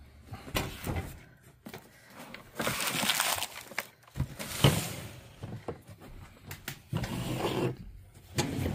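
Framed pictures and their packing being handled in a box: scattered light knocks and a stretch of rustling about three seconds in.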